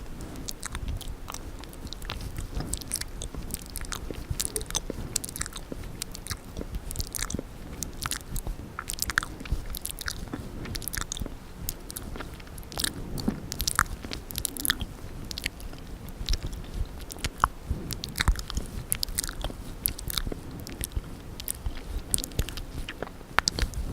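Close-miked wet mouth sounds: a dense, irregular stream of tongue and lip clicks, smacks and wet crackles.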